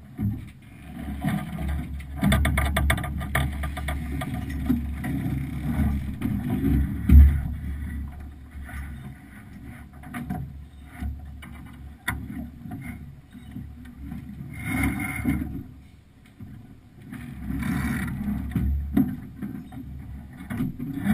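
Wind rumbling on an action-camera microphone with water rushing along a sailing yacht's hull. There is a run of rapid clicks about two to four seconds in and a loud thump about seven seconds in.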